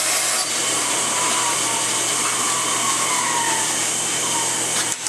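Power tool trimming aluminum scroll pieces: a steady high whir with faint tones that slide downward as it bites into the metal, cutting off just before the end.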